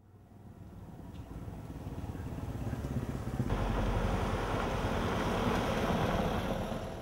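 Motor vehicle engine and road noise, a dense rumble that swells up from silence and gets noticeably louder about halfway through, then fades away at the end.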